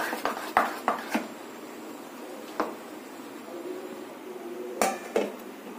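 Stainless steel bowl clinking and knocking as idli batter is stirred in it: a quick run of clinks at the start, one more in the middle and two near the end, with faint scraping of the batter between.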